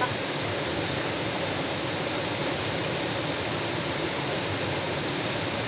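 Steady rush of a small waterfall cascading over rocks in a stream.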